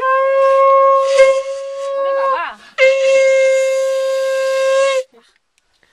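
Conch shell (shankha) blown in two long, steady blasts, sounded as part of a welcome ritual for honoured guests. The first blast slides up into its note. Its pitch wavers briefly about two and a half seconds in, and the second blast ends about five seconds in.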